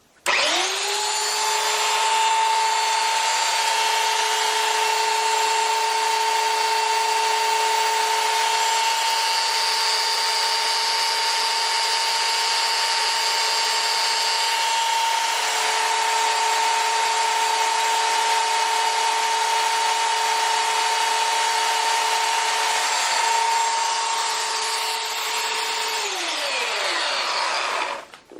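Electric belt sander switched on, spinning up quickly to a steady whine, running at constant speed, then switched off and winding down with falling pitch near the end.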